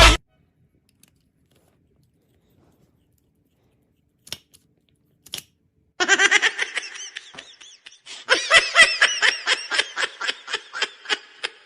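Near silence with a couple of faint clicks, then laughter from about six seconds in, breaking into quick bursts of about four a second.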